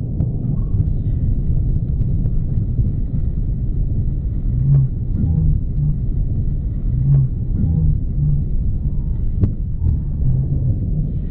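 Deep continuous rumble of a crashed rocket's explosion and fireball burning on the ground, with a few sharp cracks and pops through it.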